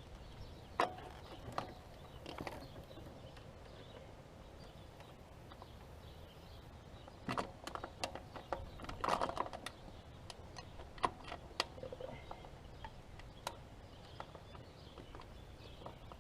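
Scattered light clicks and taps of bolts and small hand tools being handled as a blow-off valve is started onto its mounting, with a busier patch of clicking about halfway through and a few single sharp ticks.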